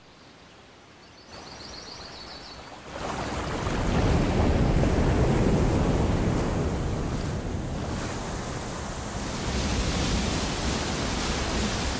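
Rushing water of a waterfall: a steady rush that swells louder about three seconds in. A short high chirping trill is heard about a second in.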